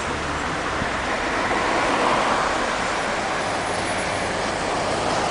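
Street traffic: steady tyre and engine noise from passing cars, swelling about two seconds in as one goes by.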